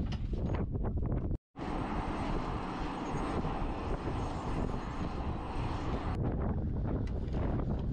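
Wind on the microphone with a few light clicks, then after a brief dropout about a second and a half in, several seconds of steady aircraft turbine engine noise with a thin high whine, which cuts back to wind about six seconds in.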